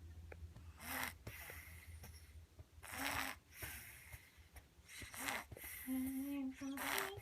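Snoring: four rasping breaths about two seconds apart, some starting with a short low tone, and a brief held hum-like tone just before the last one.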